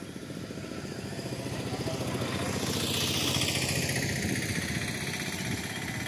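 A motor vehicle passing by, its engine and road noise growing louder toward the middle and then fading away.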